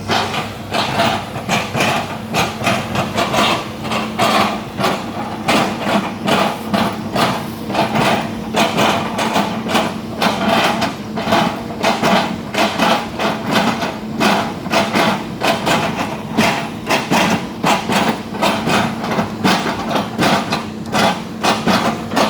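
Excavator engine running steadily under a rapid, even series of knocks, about two to three a second, as the bucket chops at an oil palm trunk.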